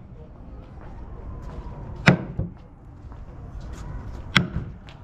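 Wooden mallet striking a carving chisel into the lid of a wooden box: two sharp knocks about two seconds apart, each followed by a lighter tap.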